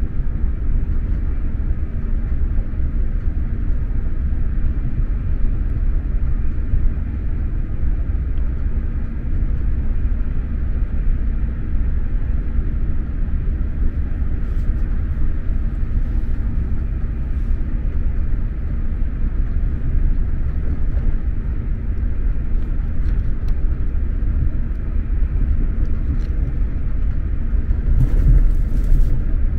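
Steady low running rumble of an X2000 high-speed train at speed, heard from inside the passenger coach: wheels and track noise without a break. A few faint ticks come about halfway through, and a brief louder rush with a low thump comes near the end.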